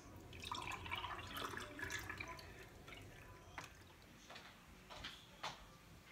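A drink poured from a bottle into a glass tumbler, the liquid running into the glass for about two seconds. After it come a few faint separate knocks.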